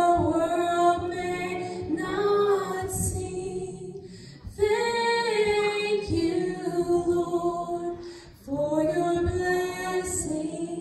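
A woman singing solo and unaccompanied, drawing out long held notes in phrases of two to three seconds with short breaths between them.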